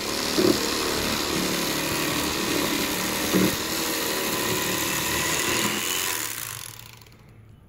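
Corded electric fillet knife running, its motor and reciprocating blades buzzing steadily as it cuts along a fish; it is switched off about six and a half seconds in.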